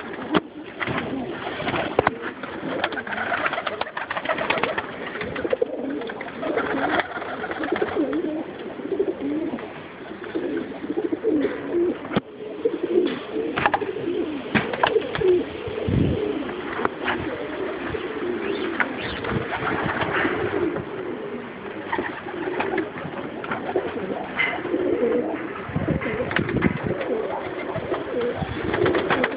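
Many domestic pigeons cooing together in their loft, a continuous overlapping murmur, with scattered sharp clicks and knocks throughout.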